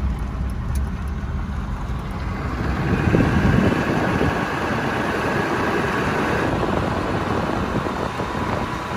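Ford F-350 Super Duty with a 7.3 Power Stroke V8 turbodiesel driving along a dirt road: steady engine and road rumble, growing a little louder about three seconds in.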